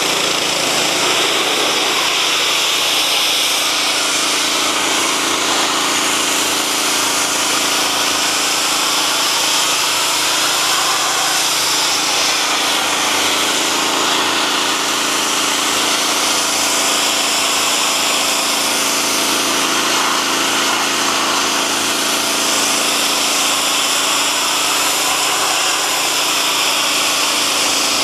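High-pressure hot-water jet from a 15-degree nozzle hissing steadily as it blasts grease and mud off a steel excavator boom, with the pressure washer's 14 HP Kohler Command Pro gasoline engine running steadily underneath.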